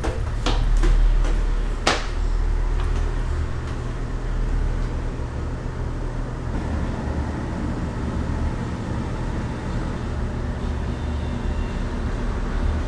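Car ferry underway, its engines giving a steady low drone, with two sharp clicks or knocks in the first two seconds.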